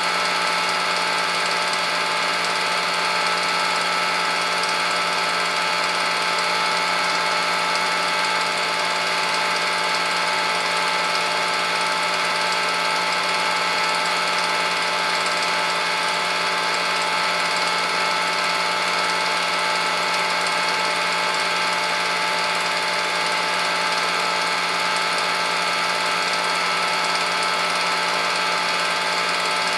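Home-movie film projector running: a steady mechanical whir with several constant motor tones, unchanging throughout.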